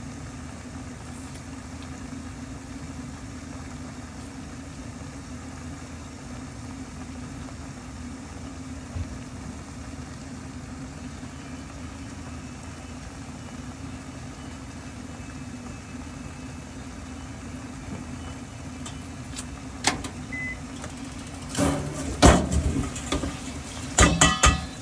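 Steady low hum in the kitchen while a covered pot of stew simmers on the stove. Near the end come several sharp clicks and clatters of kitchenware being handled.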